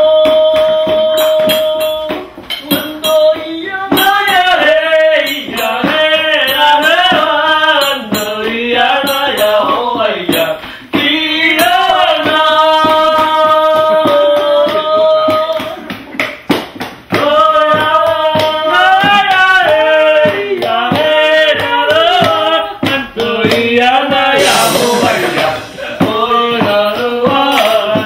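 A man singing a song, sliding between notes and holding some long ones, over a steady percussive beat.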